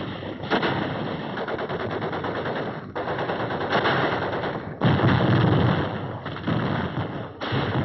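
Continuous rapid machine-gun fire with heavier mortar blasts breaking through: one about half a second in, one near four seconds, and the loudest, with a deep rumble, about five seconds in.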